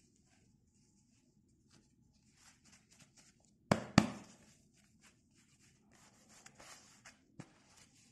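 Faint rustling and scuffing of fabric tactical gloves being handled and pulled on, with two sharp knocks about a third of a second apart a little before halfway.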